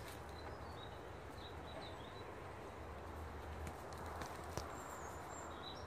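Outdoor garden ambience: a steady low rumble under faint, short high bird chirps that come now and then, with a few light clicks about four and a half seconds in.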